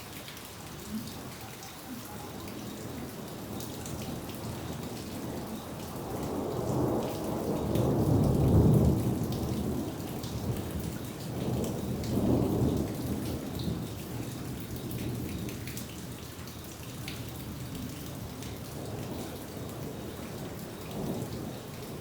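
Steady rain falling, with scattered drops ticking, and a long roll of thunder that builds about six seconds in, is loudest a few seconds later, swells once more and fades away.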